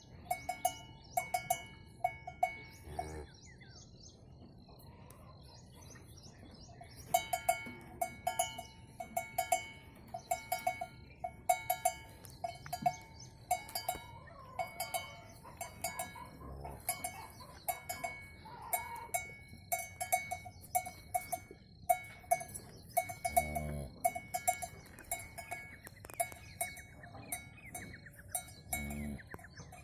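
A cowbell clanking irregularly throughout, as the animal wearing it moves. Four short, low animal calls are heard: one about three seconds in, one past the middle, and two near the end.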